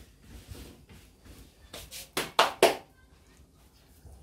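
A few light taps, then three sharp knocks in quick succession about two seconds in.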